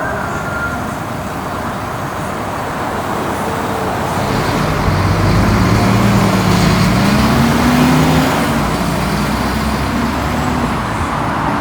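Steady road traffic noise. Around the middle a heavy vehicle's engine passes close, rising in pitch as it accelerates, and is the loudest sound for a few seconds.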